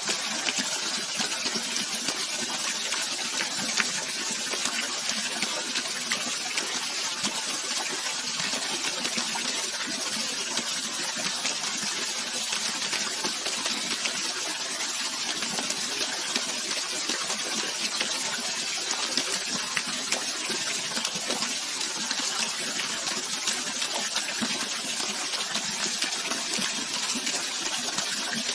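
Running water: a steady, unbroken rushing hiss, brighter than deep, with no pauses or changes.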